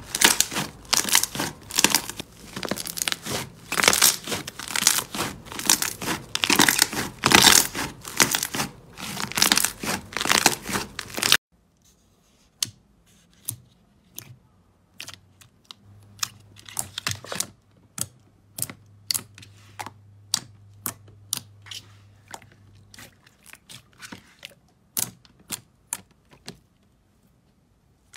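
Hands squeezing and kneading a white slime, giving dense, loud crackling and crinkling. About eleven seconds in this cuts off suddenly, and fingers poke and press a glossy pink slime, giving sparse, separate soft clicks and pops.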